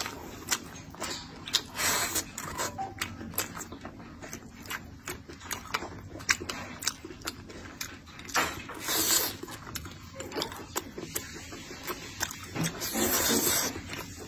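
Close-up eating sounds: wet chewing and lip-smacking on braised pork and rice, a dense run of small clicks, with a couple of longer, louder stretches about eight and thirteen seconds in.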